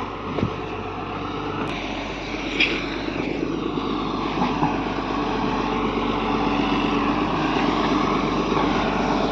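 Hitachi hydraulic excavator's diesel engine running under load, growing steadily louder, with a few short knocks.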